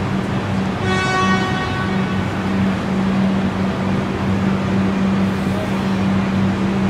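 Railway station ambience: a steady low drone, with a horn sounding once for about a second and a half about a second in.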